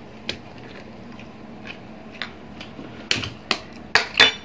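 Metal spoon tapping a balut (boiled duck egg) shell to crack it open: a few scattered sharp taps, then a quicker cluster of louder ones near the end.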